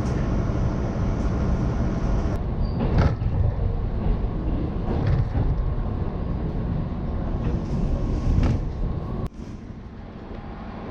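Steady low rumble of a moving train heard from inside the carriage, with a few short knocks and clanks. It drops abruptly to a quieter background about nine seconds in.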